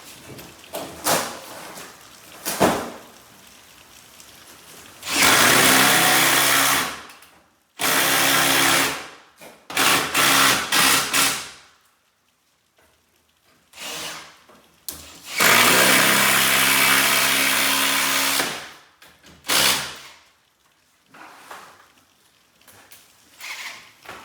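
Power drill driving fasteners in four bursts of one to three seconds each, the longest near the end, with short knocks and clicks of handling between the bursts.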